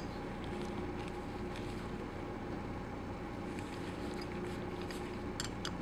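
Steady low room hum, like ventilation or machinery running, with a few faint clicks of small metal tools near the end.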